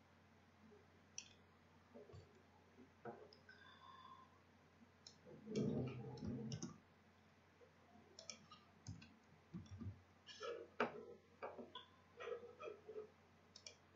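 Computer mouse and keyboard clicks: scattered single clicks, then quicker runs of key taps in the second half as a name is typed. A brief low muffled noise about six seconds in is the loudest sound.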